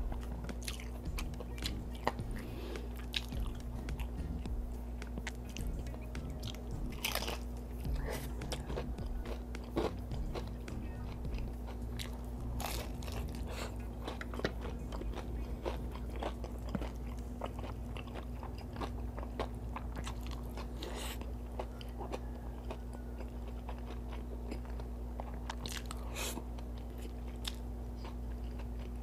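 Close-up chewing and crunching of crispy fried chicken fillet and rice, with wet mouth sounds. Sharp crunches are scattered throughout, and a few louder crunches are spaced through it.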